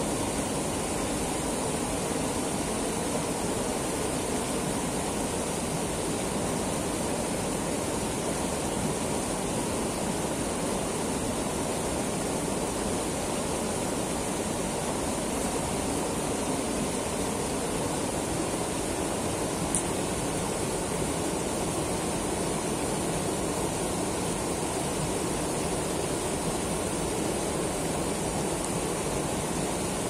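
Mountain river spilling over a low rock ledge in small falls, a steady rush of water, with one brief click about two-thirds of the way through.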